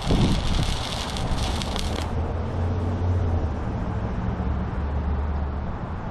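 Wire-feed welder arc crackling and sputtering during a weld, which stops sharply about two seconds in, leaving a low steady hum.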